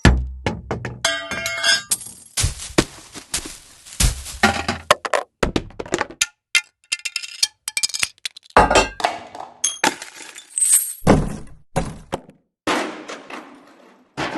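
A string of separate dropped-object sound effects: heavy thuds, things breaking, and glass and metal clinking and ringing as they land. The deepest thuds come at the start and again about 2.5, 4, 8.5 and 11 seconds in.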